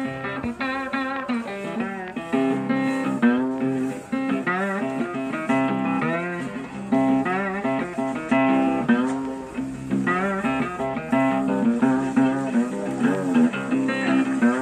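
Background music led by guitar, plucked notes with bent, wavering high notes over sustained low notes.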